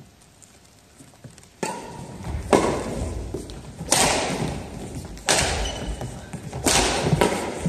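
Badminton rally: rackets hitting the shuttlecock about five times, roughly one hit every second and a half after a quiet start, each crack echoing in a large gym, with players' footfalls on the floor between hits.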